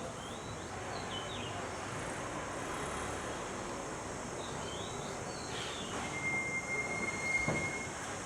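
Steady street traffic noise, with a few short high chirps and, about six seconds in, a steady high-pitched squeal lasting about two seconds.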